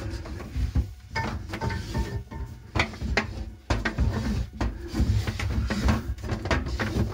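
Irregular knocks, clicks and scraping as flexible washing machine hoses and a plastic waste pipe are handled and pushed through a narrow gap behind the machine, with a few brief squeaks about a second in.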